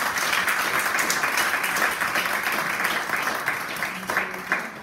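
Audience applauding: many hands clapping together in a dense, even patter that fades out near the end.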